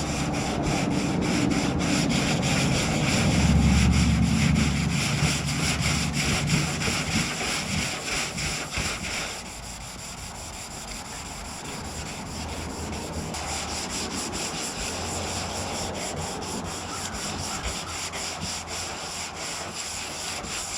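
Sandpaper rubbing back and forth over the painted steel of a car hood in steady, repeated strokes, sanding down the old paint. It drops somewhat quieter about nine seconds in.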